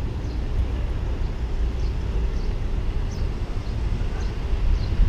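Low, steady rumble of a car driving slowly along a town street, road and wind noise on an outside-mounted camera, with faint high chirps now and then.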